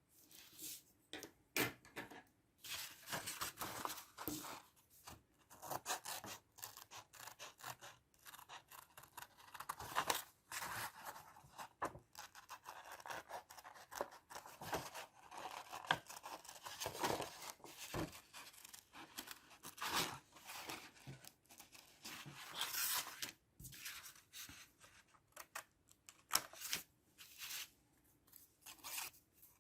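Paper being cut and handled: irregular rustles, scrapes and snips that come in uneven bursts, starting abruptly.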